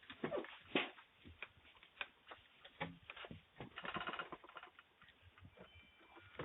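Faint, irregular clicks and taps, picked up through a doorbell camera's narrow-band microphone.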